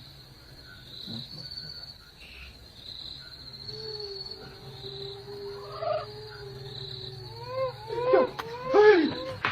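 Crickets chirping steadily at night, in pulses about once a second. Near the end comes a run of about five short, loud calls that rise and fall in pitch.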